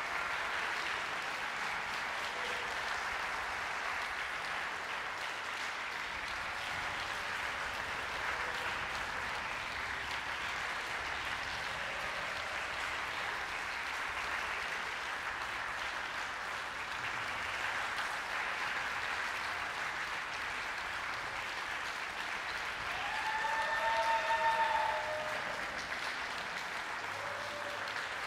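Concert hall audience applauding steadily at the end of an orchestral performance, with a short, high call from the audience rising out of it near the end.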